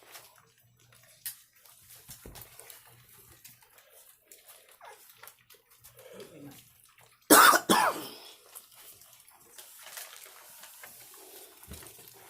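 Puppies eating wet food from a bowl: soft wet smacking and lapping clicks. About seven seconds in, one loud short vocal sound in two quick parts cuts across it.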